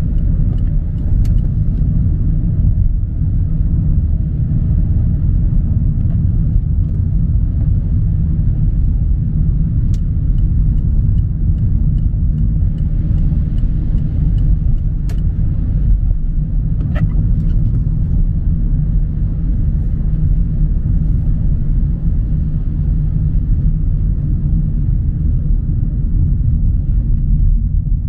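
Steady low rumble of a car's road and engine noise heard inside the cabin while driving in the rain, with a few faint clicks here and there.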